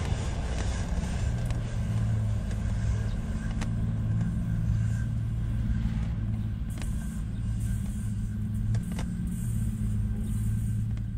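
Steady low mechanical drone with a few faint sharp clicks.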